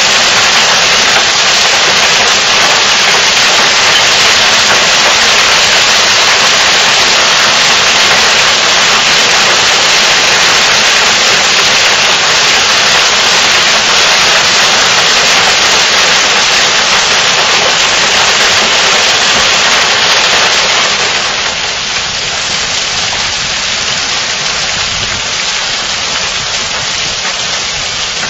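Hailstorm: hailstones pelting a wooden deck and a lawn in a dense, steady rush of noise that drops a little in level about three-quarters of the way through.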